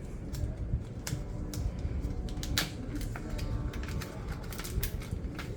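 Crinkling and crackling of a Pokémon card pack's plastic and foil wrapping being handled and torn open: a run of irregular sharp clicks and crackles over a low steady rumble.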